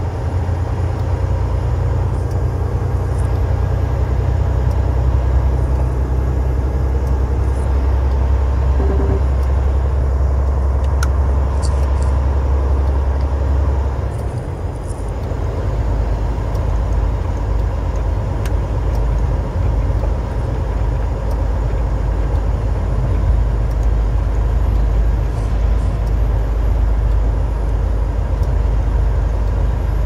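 Inside a semi truck's cab while driving: the diesel engine drones steadily under the noise of the tyres on a snow-covered road. About halfway through, the deep drone drops in pitch.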